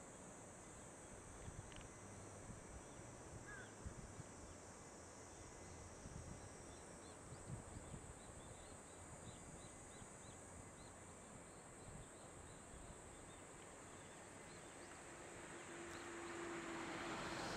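Faint outdoor riverside ambience: a steady rushing hiss with a run of small, high chirps from birds or insects. Near the end, a low engine hum comes in and the noise swells as a vehicle approaches.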